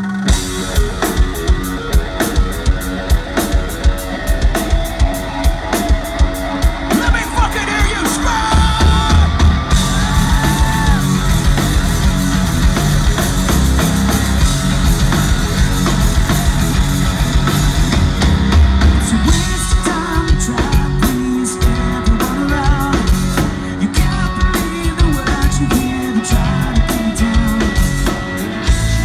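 Live rock band playing through a concert PA: electric guitar, bass guitar and drum kit, with singing. It opens on a steady pulsing beat, and the full band comes in louder about eight seconds in.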